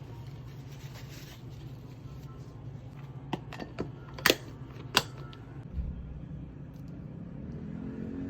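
A steady low hum with four sharp clicks or knocks, all within the space of two seconds near the middle, then a dull thump.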